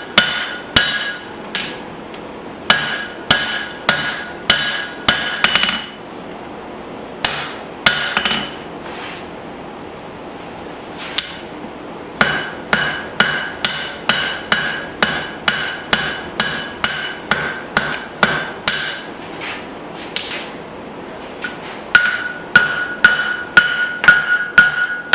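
Blacksmith's hammer striking steel on an anvil in runs of about two to three blows a second, broken by short pauses, with a clear metallic ring after each blow.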